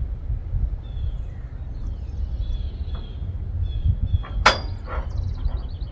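Wind buffeting the microphone in a steady low rumble, with faint bird chirps and one sharp knock about four and a half seconds in.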